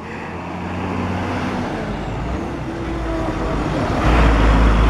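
Bus engine running close by, its deep rumble swelling to much louder about four seconds in.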